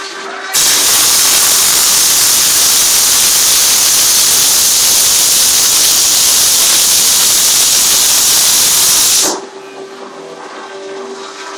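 MAG (gas-shielded) welding arc burning steadily on a steel railing post, a loud even noise. It starts just after the beginning, lasts about nine seconds and cuts off suddenly as the torch trigger is released. A quieter background with a steady hum from a fan and radio is heard before and after.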